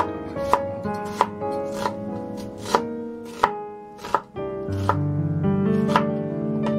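Chef's knife slicing an onion on a plastic cutting board, the blade knocking on the board about ten times, roughly one cut every two-thirds of a second.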